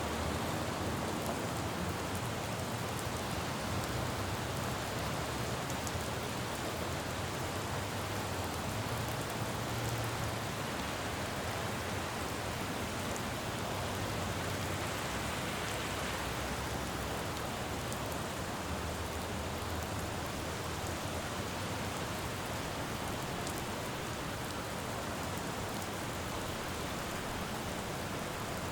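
Steady rain falling on a city street, with a low rumble of traffic that swells and fades underneath.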